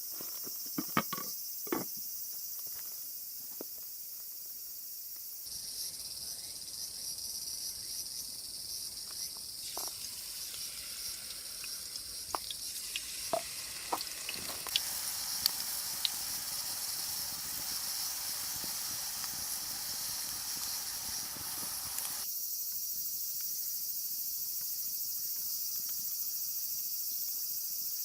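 Insects, crickets or similar, trilling steadily in a high register, with scattered sharp clicks and knocks of cooking utensils, a cluster near the start and more in the middle. The background changes abruptly a few times.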